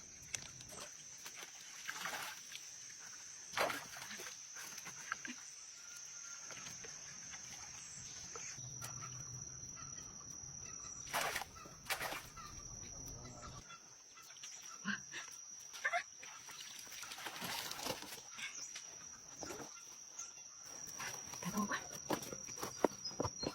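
A steady high-pitched insect drone, like crickets, runs throughout, with scattered short clicks and knocks over it.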